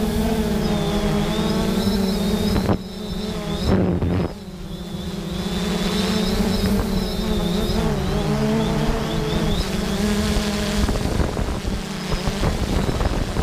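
3DR Solo quadcopter's four motors and propellers humming steadily, recorded by the GoPro it carries, with a high whine above the hum. The pitch shifts slightly as the motors change speed to hold and move the drone, with low wind rumble on the microphone.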